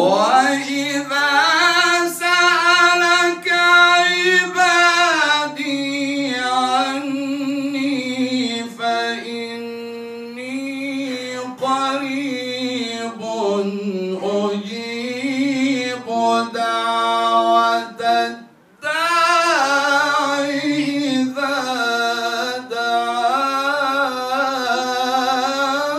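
A man's voice reciting the Quran in a slow, melodic chant, drawing out long ornamented notes that bend up and down in pitch, with one short breath a little past two-thirds of the way through.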